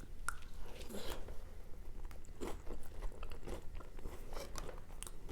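A person chewing a mouthful of MRE food close to the microphone, with soft, irregular crunching and mouth sounds.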